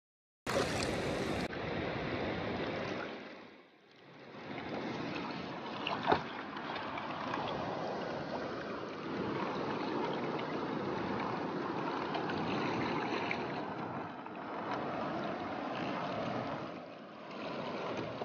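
River water rushing and splashing against a small boat moving on the river, a steady noisy wash that dips briefly about four seconds in. A single sharp knock sounds about six seconds in.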